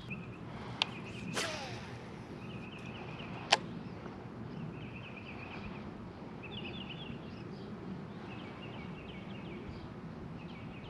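A fishing rod swishing through a cast about a second and a half in, with a sharp click just before it and a louder sharp click about two seconds after. Short, rapid chirping trills repeat in the background.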